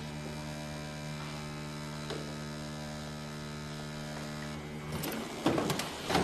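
A vibrator buzzing with a steady hum. About five seconds in the buzz cuts out, followed by a few handling clicks and knocks as it is lifted out of its case.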